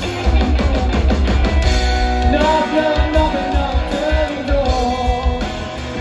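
Live band playing amplified through a PA: electric guitar, upright double bass and drum kit together in a loud, driving rock-and-roll song.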